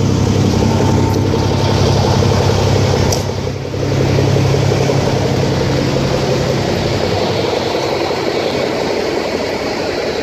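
Semi truck's diesel engine idling with a steady low hum, growing fainter after about seven seconds.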